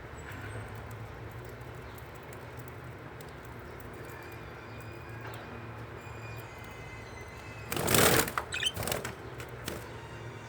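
Small cage birds, a loud flurry of wing flapping about eight seconds in, followed by two shorter flutters. Faint short high cheeps come before it.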